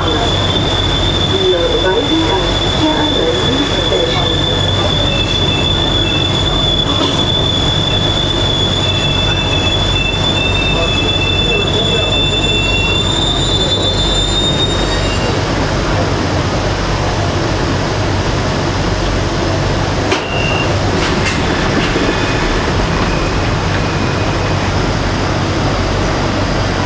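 Beijing Metro SFM04 subway train running, a steady low rumble with a high, steady squealing tone that dies away about fifteen seconds in. The level briefly dips about twenty seconds in, then the rumble carries on.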